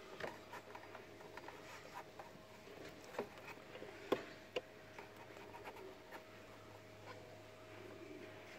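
Faint rubbing and clicking of rubber vacuum hoses and plastic fittings being pushed back onto a Toyota Celica's air intake by hand, with a few sharper clicks around the middle, over a faint steady hum.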